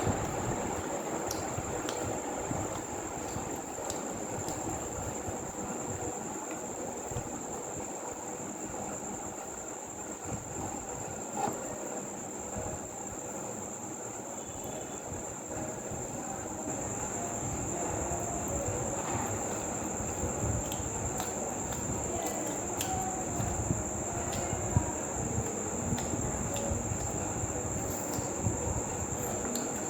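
Eating sounds, with irregular small clicks and smacks of chewing, over a steady background rumble and a constant high-pitched whine.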